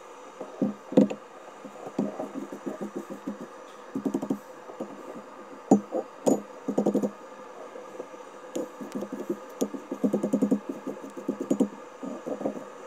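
Tongs and a red-hot steel bar clattering against a steel anvil in short, rapid rattling runs as the bar is worked over the anvil's edge. A propane gas forge hisses steadily underneath.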